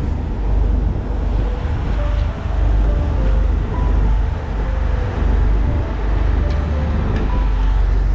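Fishing boat under way: a steady low rumble of its engine with wind buffeting the microphone and water rushing along the hull and wake.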